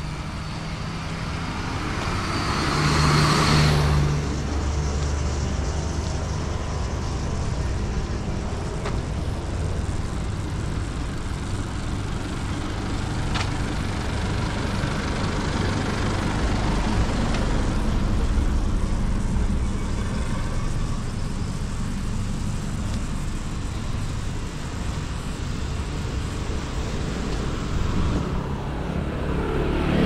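Road traffic heard from the roadside: a steady engine and tyre rumble as cars go by, with one vehicle passing close about three seconds in. A motor scooter passes close alongside near the end.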